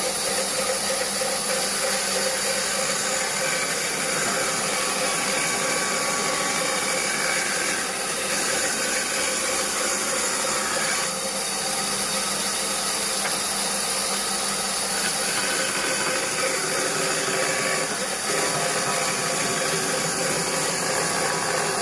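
Band saw running steadily with a freshly hand-filed blade, cutting wood.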